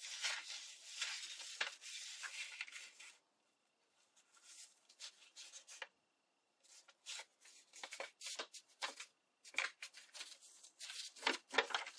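Book-page paper rustling and crinkling as it is folded and pressed by hand into a petal: a steady rustle for about the first three seconds, then scattered short crinkles with pauses between.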